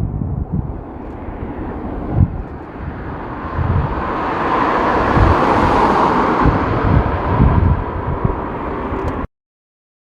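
Jet airliner passing close, its engine noise swelling to a peak about halfway through and easing slightly, over heavy wind buffeting on the microphone. The sound cuts off suddenly near the end.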